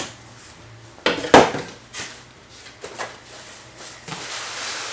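Cardboard box and packaging being handled: a loud knock about a second in, a few lighter knocks and rustles, then rubbing and rustling near the end.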